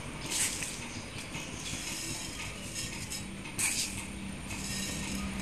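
Mustard seeds tipped into hot oil in a stainless steel pan, rattling onto the metal in two brief bursts, about half a second in and again about three and a half seconds in, over a light steady sizzle of the heated oil.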